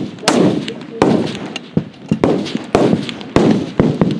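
Rifle fire from an F-Class match firing line: about eight sharp shots at uneven spacing from several rifles, each trailing off in a rolling echo.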